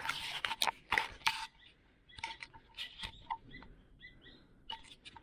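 Squirrels calling in the trees: a string of short, sharp chirping calls, repeated irregularly. A few sharp rustling clicks come in the first second or so.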